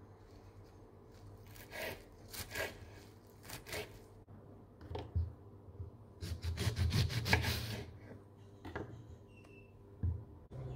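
Kitchen knife chopping fresh parsley on a wooden cutting board, a few separate strokes, then a serrated knife sawing through a lemon in a quick run of rasping strokes about six seconds in.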